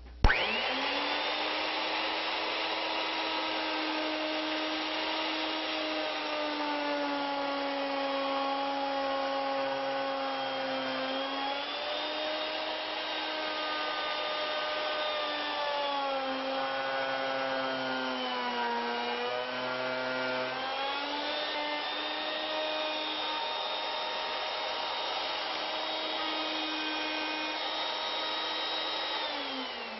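Router on an ornamental mill switched on and running at speed. Its pitch sags several times as the bit cuts into the wood, and it is switched off and spins down near the end.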